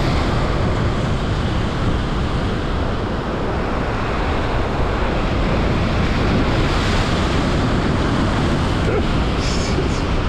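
Sea surf and wind buffeting the microphone: a steady, loud rushing noise.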